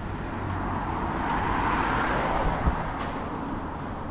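A road vehicle passing by, its tyre and engine noise swelling to a peak about two seconds in and then fading away. There is a brief low thump just after the peak.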